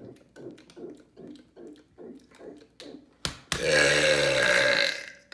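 A man's loud, long burp lasting about a second and a half, starting a little past halfway, with a sharp click just before it. Before that, a run of short rhythmic sounds, about three a second.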